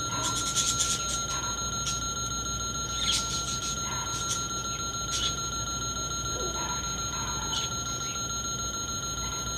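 Toy fuel pump's electronic sound module giving a steady high-pitched tone, with a few short chirps over it.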